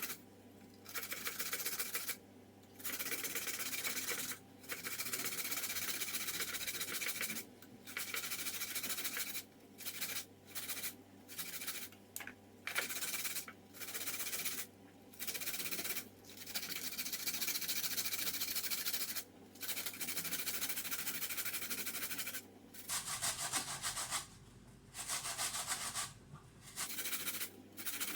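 Vegetables being rubbed back and forth on a hand grater. The rasping comes in runs of a second or more with short pauses between them, and the strokes get shorter and choppier near the end.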